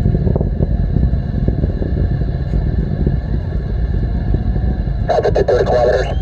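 Distant Falcon 9 first stage, its nine Merlin engines burning in ascent: a loud, steady low rumble with crackling all through. About five seconds in, a brief rasping burst sounds over it.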